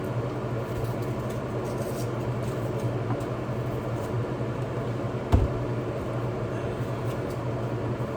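Steady low hum, with a single sharp knock about five seconds in.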